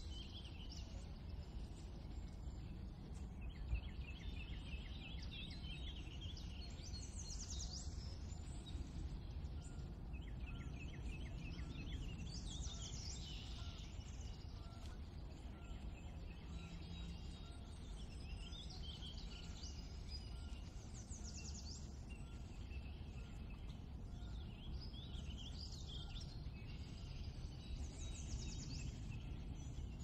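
Spring birds singing: short repeated phrases, trills and quick downward-sweeping notes come and go throughout, over a steady low background rumble.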